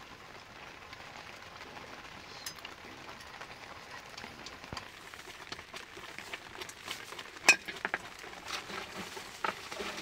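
Open wood fire crackling under a steaming cooking pot, over a steady hiss, with scattered metal clinks of a spoon against the pot and bowls; the loudest clink comes about seven and a half seconds in.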